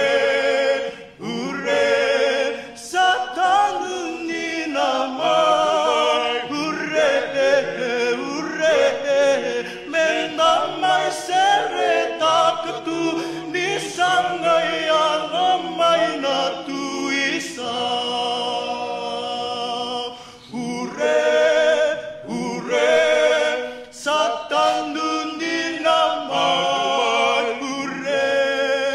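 A small group of men singing a cappella in harmony through microphones, in sung phrases with brief pauses about a second in and again around 20 seconds in.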